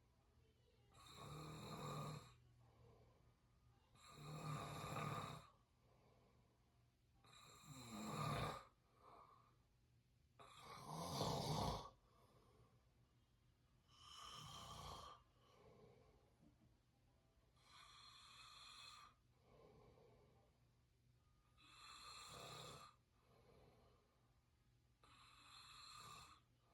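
A person snoring through an open mouth: eight raspy snores, each about a second long, one every three to four seconds, with softer breaths between.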